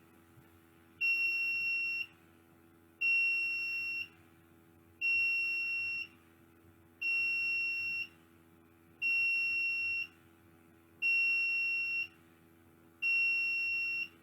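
Piezo buzzer on a Raspberry Pi beeping a single high steady tone, one second on and one second off, seven times. This is a homemade burglar alarm that a PIR motion sensor has set off, with the code switching the buzzer on and off each second.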